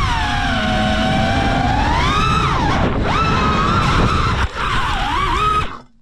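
Electric motor and propeller of an FPV aircraft whining as heard from its onboard camera, the pitch sliding down and up several times with the throttle over a low rush of wind. It cuts off suddenly near the end.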